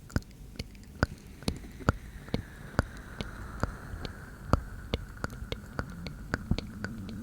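ASMR mouth sounds: close-miked wet clicks of the lips and tongue, irregular at about two a second, with soft breathing joining in about a third of the way through.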